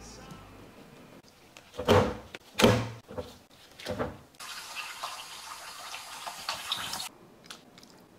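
A few loud knocks and clunks in a stainless steel kitchen sink, then a kitchen tap running for about three seconds over raw beef in a steel bowl, cutting off abruptly. Faint clicks follow near the end.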